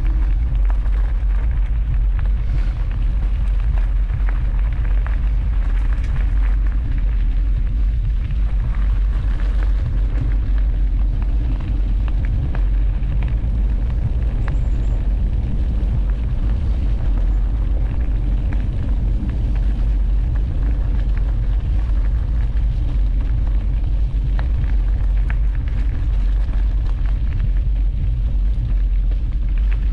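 Wind buffeting a GoPro HERO 12 Black's microphone on a moving bicycle: a loud, steady low rumble.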